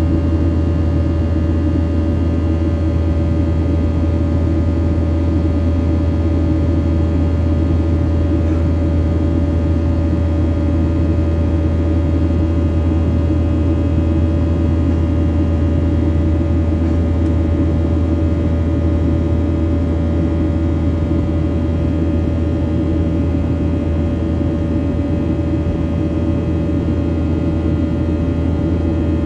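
Cabin noise of a Boeing 737-800 in flight, heard from a window seat: its CFM56-7B turbofan engines make a steady, unchanging drone, a deep hum with several steady whining tones above it.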